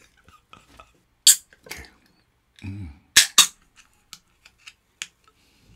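Aluminium beer can being opened by its pull tab: a sharp crack about a second in with a short hiss, then two more loud cracks close together around three seconds in, followed by a few light clicks.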